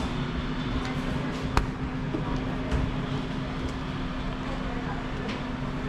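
Appliance-store background noise: a steady low hum under a diffuse hubbub, with one sharp click about one and a half seconds in.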